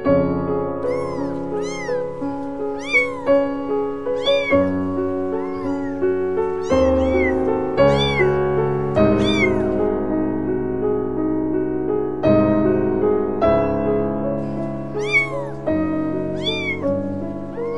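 Kitten meowing over and over in short high-pitched mews, one or two a second with a couple of brief pauses, each call rising and then falling in pitch. Gentle piano music plays under the meows.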